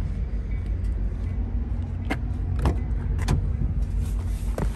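A person getting into a car: a few sharp clicks and knocks from steps, the door handle and the car door being opened, over a steady low rumble.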